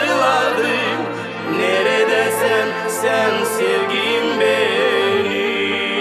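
Estrada pop song: a man singing over a band accompaniment, with cymbal strokes now and then.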